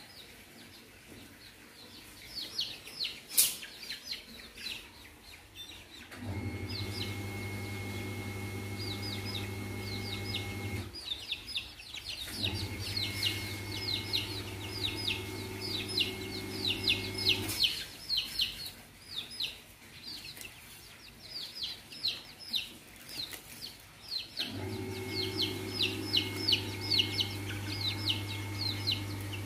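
Young bantam chickens peeping, a long run of quick, high chirps, several a second. A steady machine hum comes in about six seconds in, drops out twice and starts again near the end.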